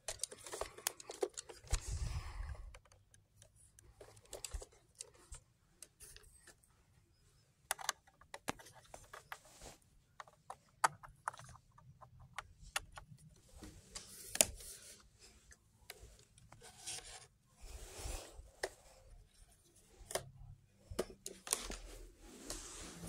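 Handling noise from the Kaito Voyager KA500 weather radio's plastic case and its cardboard box being picked up and moved by hand: irregular clicks, light knocks, scraping and rustling.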